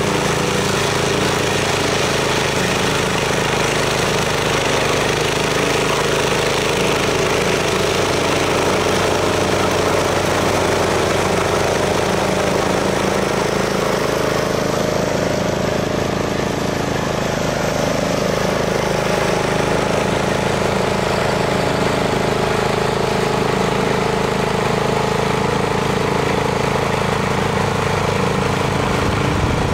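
Briggs & Stratton 344 cc petrol engine of a PANTER FD-344-HG self-propelled high-grass mower running steadily under load while its mulching blades cut tall grass.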